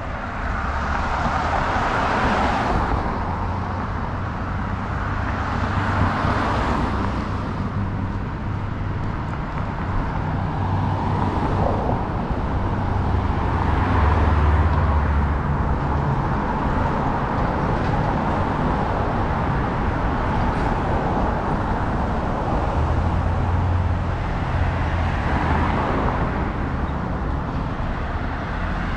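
City street traffic: cars and other vehicles passing one after another, their tyre noise swelling and fading every few seconds over a steady low engine rumble.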